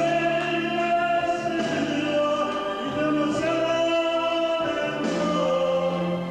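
Music with singing: long held melody notes over a steady backing accompaniment.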